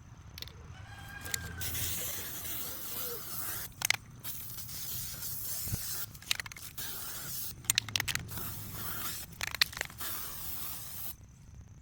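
Aerosol spray paint hissing in several long bursts, with short pauses and sharp clicks between them, as a coating is sprayed onto metal strap hinges.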